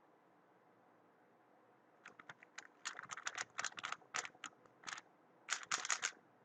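Weilong WRM 2019 speedcube being turned rapidly in a speedsolve. Quick runs of plastic clicks and clacks start about two seconds in, with short pauses between the turn sequences.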